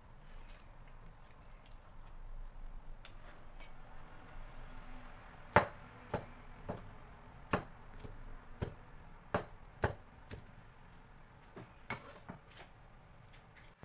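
A Chinese cleaver striking garlic cloves on a bamboo cutting board: about ten sharp chops at uneven intervals, starting about five seconds in. The first chop is the loudest. Faint handling sounds come before the chops.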